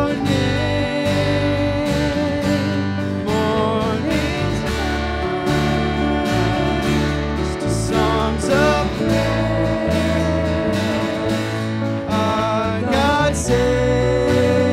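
Live worship band music: strummed acoustic guitar over bass notes and drums, with a wavering melody line on top.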